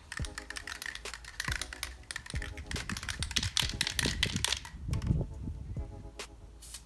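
Aerosol spray paint can being shaken, the mixing ball inside rattling in rapid clicks, thinning to a few clicks near the end.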